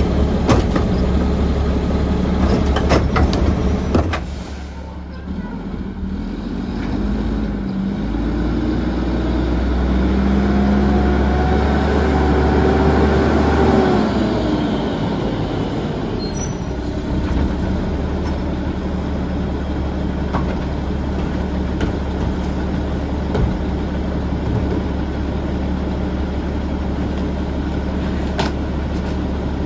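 Mack LE garbage truck's diesel engine running as the truck pulls up. Its pitch rises from about a quarter of the way in and falls again near the middle, where a brief air-brake hiss sounds. The engine then runs steadily at idle.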